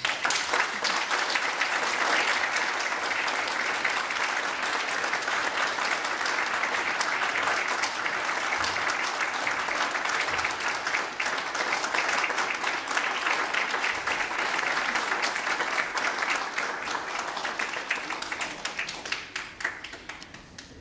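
Audience applauding at the end of a concert piece; the clapping holds steady and then thins out and fades over the last few seconds.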